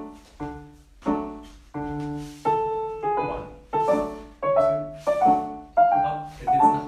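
Piano accompaniment for a ballet barre exercise: chords struck on a steady beat, each dying away, with a melody moving over them from about halfway through.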